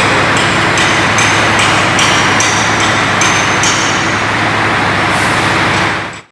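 A heavy vehicle engine running steadily under a loud, wide hiss, with short high squeaks repeating every half second or so. It fades out just before the end.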